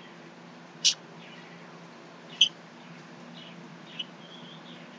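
Quiet room tone with a steady low hum, broken by three brief high-pitched squeaks about a second and a half apart.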